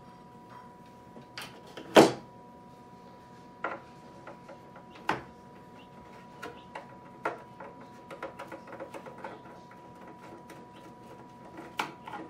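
Screwdriver clicking and knocking against a clear plastic incubator cover as its screws are taken out. There is one sharp loud knock about two seconds in, a few lighter knocks, and then a run of quick small ticks. A faint steady tone sounds underneath.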